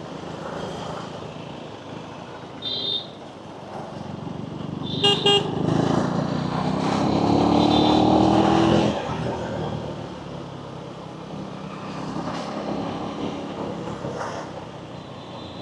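Motorcycle riding in city traffic, with two short vehicle horn honks a few seconds in. Around the middle the engine revs up as it accelerates, pitch rising, then eases off sharply.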